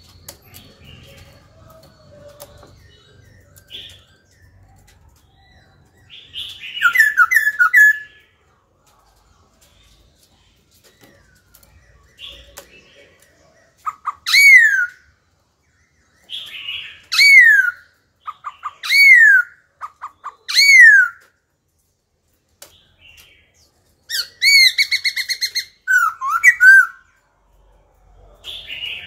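Black-throated laughingthrush singing: a quick stuttering run of notes, then loud, clear down-slurred whistles repeated about every two seconds, and near the end a fast rattling series breaking into warbled notes, with quiet pauses between phrases.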